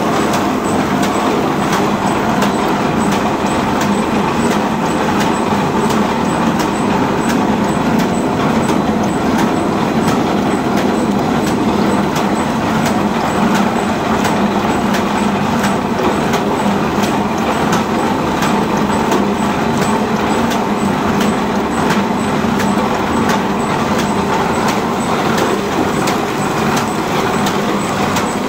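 Paper bag making machine running at speed: a steady mechanical clatter with a sharp click about twice a second.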